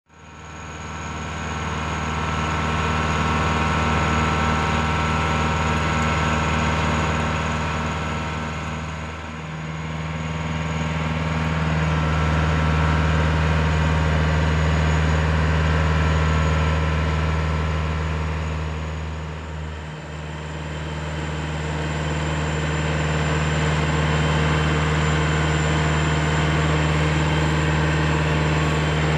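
Perkins diesel engine of a 2007 Haulotte HA41PX articulating boom lift running steadily while the boom is operated. Its speed and loudness dip briefly twice, about nine and twenty seconds in.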